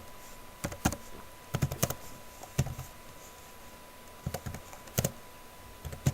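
Typing on a computer keyboard: short clusters of keystrokes separated by pauses.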